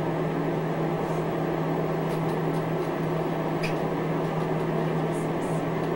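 Steady mechanical hum: a constant low drone over an even hiss, with a few faint clicks about two to four seconds in.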